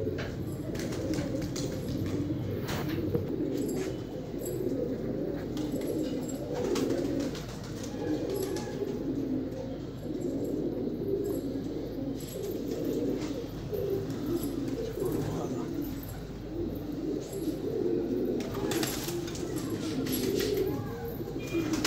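A loft of fancy pigeons cooing continuously, many birds' coos overlapping into a steady burbling chorus, with a few scattered clicks.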